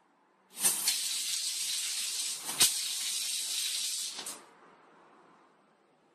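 Water from a washbasin tap gushing out with a loud hiss for about four seconds, starting and stopping abruptly, with a few sharp clicks, the loudest about halfway through.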